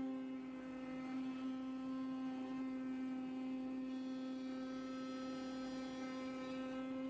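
Vibration knife on a Richpeace CNC flatbed cutter, oscillating as it cuts through car-mat carpet: a steady, even buzz with many overtones.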